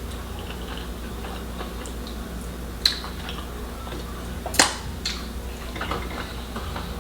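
Quiet eating sounds at a meal table: a few sharp clicks and taps of dishes and food, the loudest about four and a half seconds in, over a low steady hum.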